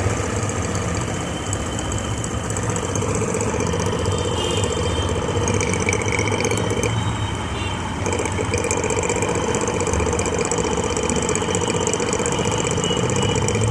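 RO booster pump's 24 V DC motor running noisily, with a steady hum and a thin high whine. The noise comes from the pump's worn bearings, which are due to be replaced.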